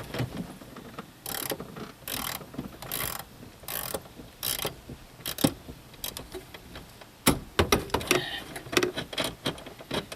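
Hand ratchet clicking in short strokes, about one every 0.8 s, as a nut is turned onto a bolt. Near the end come scattered irregular clicks and knocks.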